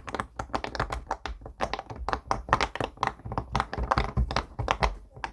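Silicone pop-it push-pop fidget toys being pressed fast by two players racing each other: a quick, irregular run of small popping clicks.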